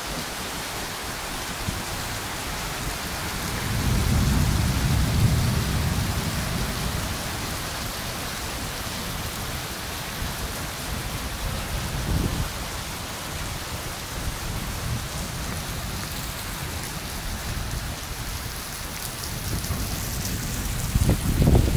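Heavy rain pouring steadily onto wet cobblestones and puddles. A low rumble of thunder swells about four seconds in and fades over a few seconds, with shorter low rumbles later.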